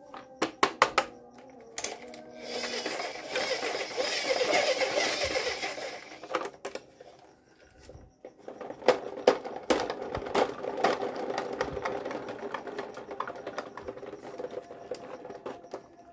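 Large plastic toy jeep being handled and its wheels turned: sharp plastic clicks and knocks, with a few seconds of steady rattling whir early on and more rattling and clicking through the second half.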